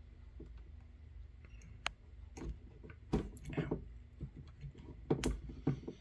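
Irregular clicks and knocks of weather radio receivers being handled, their buttons and switches being worked, with a cluster of clicks in the middle and a few more near the end, over a steady low hum.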